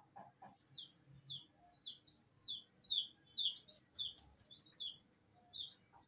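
Young chicken calling: a couple of low clucks at the start, then a run of about ten short, high peeps that each fall in pitch, roughly two a second.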